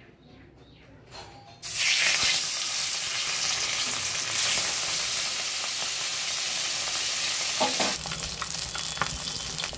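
Katla fish belly pieces, rubbed with salt and turmeric, sizzling as they shallow-fry in hot oil in a kadai. The sizzle starts suddenly a little under two seconds in and runs steadily, with a few clicks and scrapes of a steel spatula near the end.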